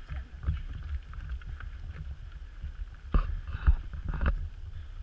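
Footsteps of several trail runners going past on a dirt forest path, with a few heavier footfalls about three to four seconds in, over a low wind rumble on the microphone.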